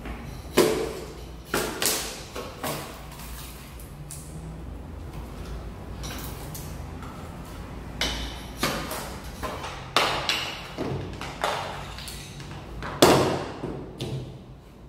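Irregular sharp knocks and clacks of hand tools striking and prying old solid-wood parquet blocks loose from the subfloor. The knocks come in two clusters with a pause between, and the loudest fall near the start and about thirteen seconds in.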